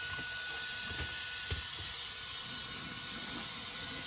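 Brushless high-speed hair dryer running steadily: a rush of air with a thin, high motor whine over it.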